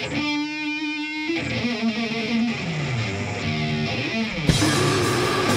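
Solo electric guitar playing a song intro through an amplifier: held ringing notes, then a run of falling notes and a downward slide. About four and a half seconds in, the full band comes in loud with distorted guitar and drums.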